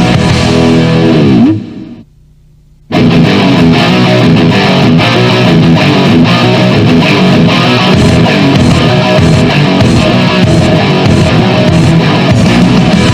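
Heavy rock music with distorted electric guitar. About a second and a half in, the music cuts out for about a second, then comes back in at full level.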